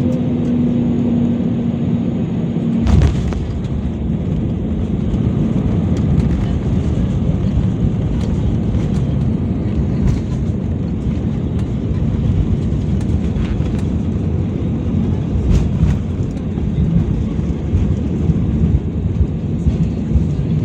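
Airbus A320neo airliner heard from inside the cabin. A steady hum stops with a thump about three seconds in, then a loud, continuous low rumble follows.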